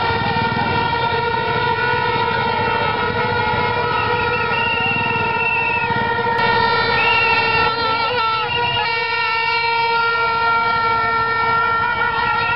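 A horn held on one unbroken steady note over the noise of a crowd. Whistles trill about four seconds in and again around seven seconds.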